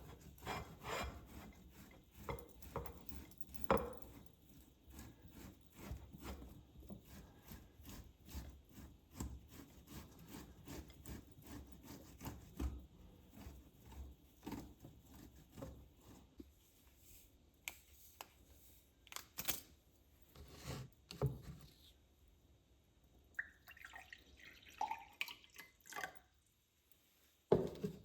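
Faint, scattered clicks, light knocks and rubbing, as of objects being handled.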